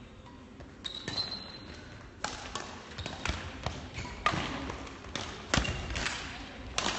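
Badminton rally: a string of sharp cracks from rackets striking a shuttlecock, about a dozen at uneven spacing, starting about a second in.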